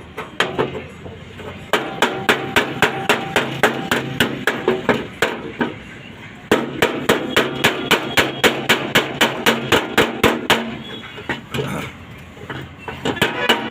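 Hammer beating the sheet-metal body panel of a truck cab to work out accident damage: quick, even blows, about four a second, in two runs with a short pause between and a few scattered strikes near the end. The metal rings lightly with each blow.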